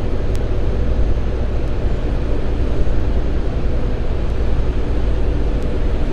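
Steady low drone of running rooftop HVAC machinery, with faint hum tones under an even rumble.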